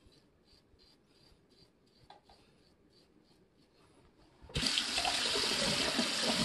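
Faint, even strokes of a razor scraping over buttered neck stubble, about three a second; then about four and a half seconds in, a tap is turned on and water runs loudly into a sink.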